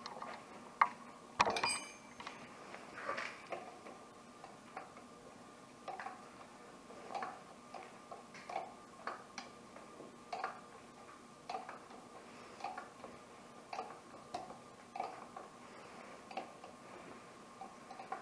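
Wrench clicking in steady strokes, about one a second, as the tension adjuster on a Camso X4S track is tightened. A single sharp metallic clank rings about a second and a half in.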